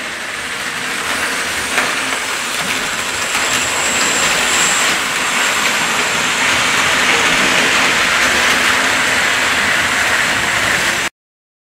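Model train running round the layout track: a steady whirring hiss of the electric motor and wheels rolling on the rails. It grows louder over the first few seconds as the train comes close, then cuts off suddenly near the end.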